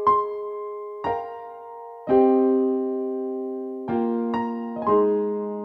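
Slow background piano music: single notes and soft chords struck about once a second, each left to ring and fade, with a longer held chord about two seconds in.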